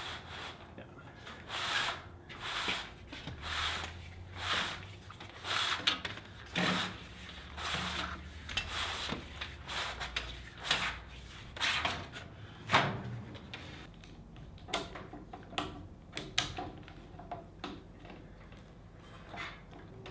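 Rubber garage-door bottom seal being pulled sideways out of the door's bottom retainer channel: a run of rubbing, scraping pulls about a second apart. After that come a few lighter clicks and knocks.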